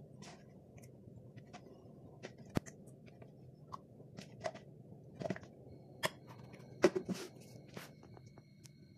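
Metal spoon scooping yogurt and tapping and scraping against a white bowl: scattered light clicks and knocks, with a few sharper knocks of the spoon on the bowl.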